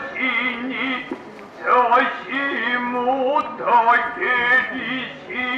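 A man's voice delivering kyogen lines in a drawn-out, wavering sing-song chant, in several phrases with a pause about a second in.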